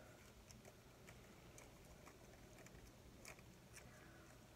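Near silence, with faint, scattered ticks and crinkles from twisted aluminum foil spirals being handled and pushed inside one another.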